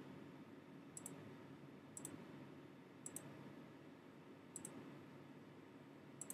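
Faint computer mouse clicks, about five quick double-clicks roughly a second or so apart, over a low steady background hum.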